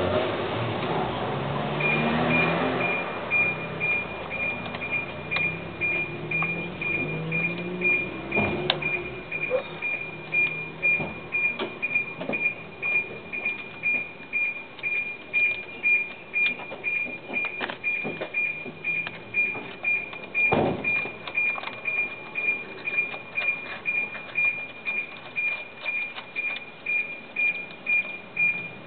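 A high electronic beep repeating steadily about twice a second, with a couple of sharp metallic clanks from hand work on the scooter's belt drive.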